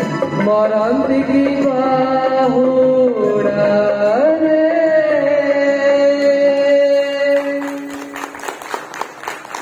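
A man singing a song into a hand microphone, holding long, steady notes with a few steps in pitch, the song's end. About eight seconds in the singing stops and the audience claps.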